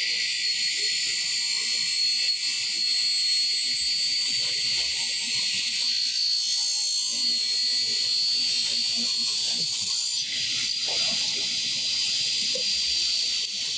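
A 1970s Craftsman direct-drive table saw runs with its blade ripping through a board. A steady high whine sits over the cutting noise. About ten seconds in, the whine fades and the sound changes.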